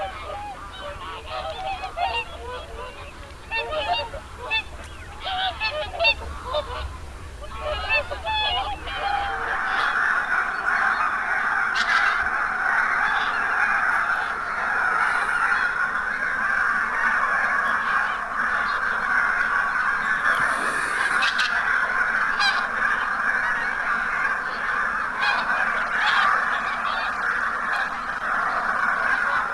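A flock of geese calling. Separate honks come scattered at first, and from about ten seconds in they merge into a dense, continuous chorus of many geese.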